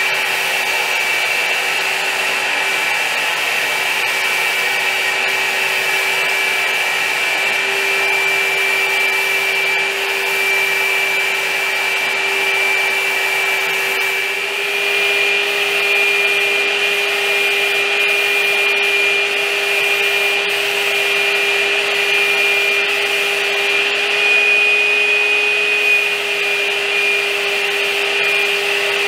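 Gravity-feed spray gun spraying finish, a steady hiss of air with a steady high whine running under it.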